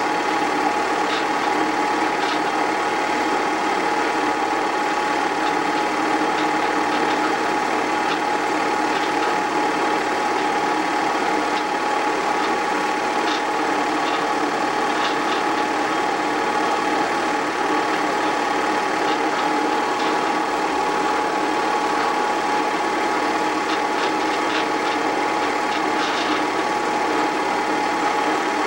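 8mm film projector running, a steady mechanical whir with a constant hum tone, and faint ticks scattered through it.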